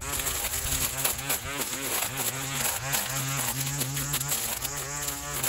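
Battery-powered electric trimmer running and cutting through overgrown vines: a steady buzz whose pitch dips and recovers as the cutter takes the growth, switched on at the start.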